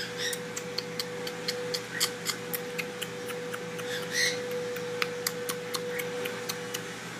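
Rapid, fairly regular clicking, about four clicks a second, over a steady electrical hum.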